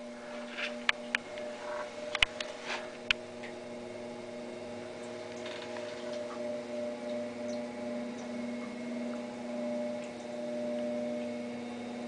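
Homemade tornado machine running: its top-mounted fan and ultrasonic humidifiers make a steady, slightly pitched hum. A few sharp clicks sound in the first three seconds.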